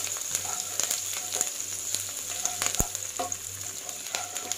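Chopped garlic, ginger, green chillies and curry leaves sizzling in hot oil in a non-stick kadai while a spatula stirs and scrapes them, with a sharp click nearly three seconds in.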